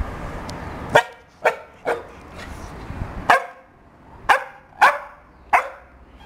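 Peruvian Hairless Dog barking: about seven short, sharp barks, irregularly spaced, starting about a second in.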